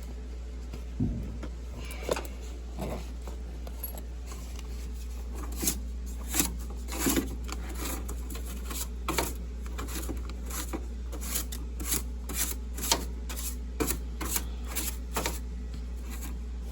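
Hand work on a furnace: a run of small, hard clicks and taps at an uneven pace, coming more often from about halfway, over a steady low hum.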